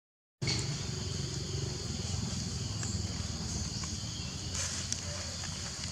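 Outdoor woodland ambience: a steady high insect drone over a low rumble, after a brief cut to silence at the very start.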